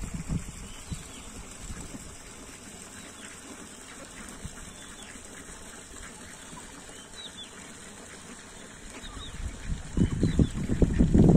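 Flock of domestic ducks foraging, with scattered soft, short high chirps and calls. A loud low rumble builds near the end.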